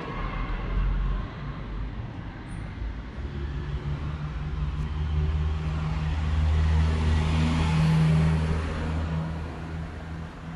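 A motor vehicle's engine running close by on the street, a low steady hum that grows louder to a peak about eight seconds in and then eases off as it passes.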